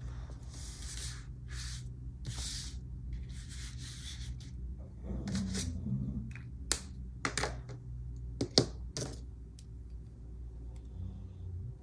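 Close handling noises: several soft rustling swishes, then a run of sharp clicks and taps, over a low steady hum.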